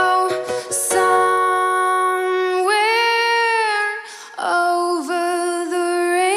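A young woman singing a slow melody in long held notes over a strummed ukulele, with a brief break between phrases about four seconds in.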